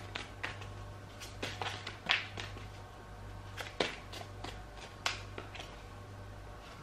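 A tarot deck being shuffled by hand: irregular soft taps and flicks of the cards, over a steady low hum.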